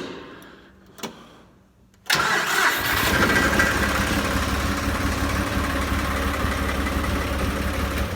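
John Deere 5055E tractor's three-cylinder diesel engine cranks and fires about two seconds in, then settles into a steady idle. It starts now that a blown starter relay fuse has been replaced with a good one.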